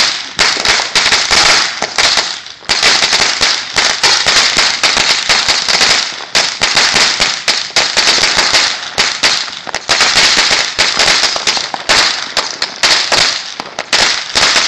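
A 4,000-count string of firecrackers going off in a loud, rapid, unbroken chain of cracks and pops, with a brief lull about two seconds in.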